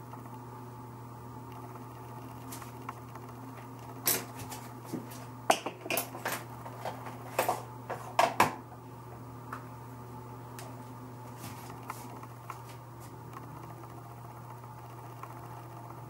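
A run of sharp clicks and knocks, like small hard objects being handled and set down, about four to eight and a half seconds in, over a steady low hum.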